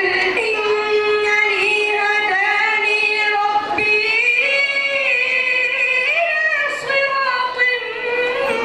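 A boy chanting Quranic recitation (tajweed) into a microphone, drawing out long melodic notes that glide and step in pitch, with a few short breaks for breath.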